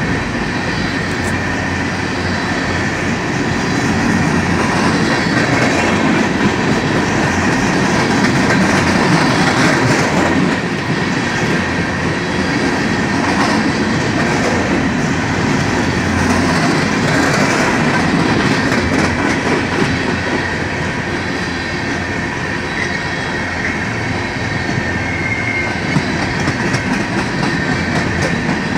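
Coal train gondola cars rolling past at close range: a steady rumble of steel wheels on rail with a clickety-clack of the wheels. A thin, steady high wheel squeal runs underneath.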